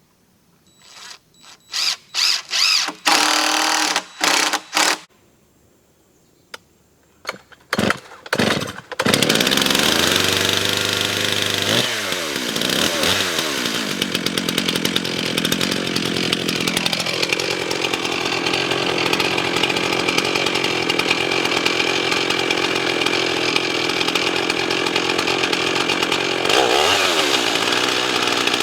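Stihl MS 391 chainsaw on a chainsaw mill. A string of short bursts comes first, then about nine seconds in the saw runs continuously at high revs. The revs drop briefly a couple of times, then the saw runs steadily under load ripping a large white oak log.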